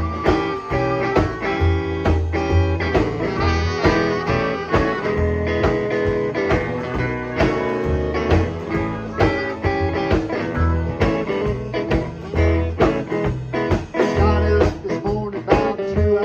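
Blues band playing a song's instrumental intro: guitar over a steady beat with a repeating low bass line.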